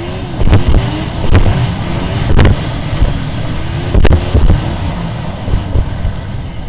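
Yamaha snowmobile running under throttle on a bumpy trail, heard from onboard: engine pitch rising and falling, with a rough rumble and sharp knocks every second or so as the sled hits bumps.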